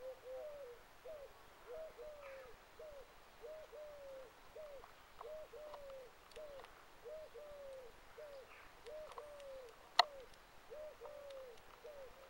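A pigeon cooing over and over, short and longer notes alternating in a steady rhythm. A single sharp click about ten seconds in.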